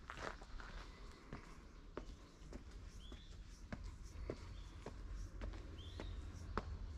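Footsteps climbing stone steps, a little under two steps a second. Short bird chirps come about three seconds in and again near the end.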